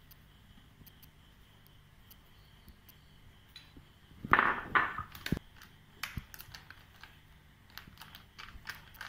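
Small clicks and knocks of a plastic measuring spoon and kitchen containers being handled, with a short louder clatter a little over four seconds in.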